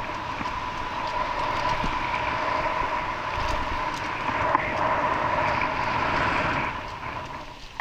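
A vehicle running, a steady whine over a rushing noise, fading near the end.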